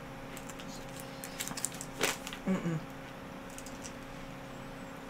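Quiet room tone with a steady faint electrical hum, broken by a few soft clicks about a second and a half in and a brief murmur a moment later.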